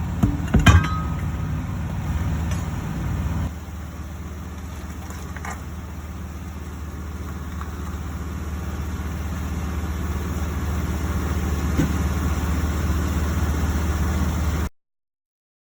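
Truck engine running steadily at idle, with a few sharp metal clinks about half a second in.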